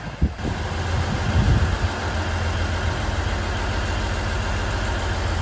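KiHa 110 series diesel railcar idling at the platform: a steady low engine hum.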